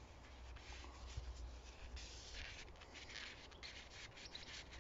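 Engine oil dipstick being wiped clean with a cloth: faint rubbing strokes, coming thicker from about halfway through.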